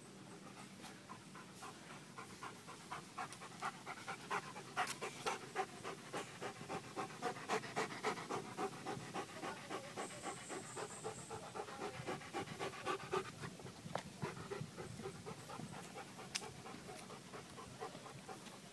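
Quick, rhythmic panting close to the microphone, about three breaths a second, getting louder in the middle and easing off near the end.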